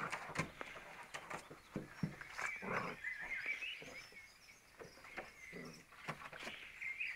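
Dogs play-fighting: a springer spaniel puppy squeaks and yips while a larger dog makes short low growls, with scattered rustling clicks. The squeaky sounds are thickest about two and a half to three and a half seconds in.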